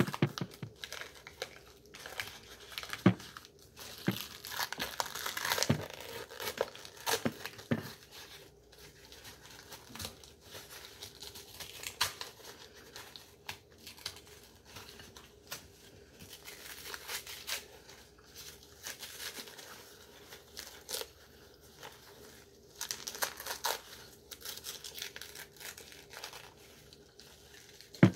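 Brown paper bag tearing and crinkling as it is peeled off a hard-packed brick of cornstarch, in irregular rustling bursts with a few sharp cracks, the loudest near the end.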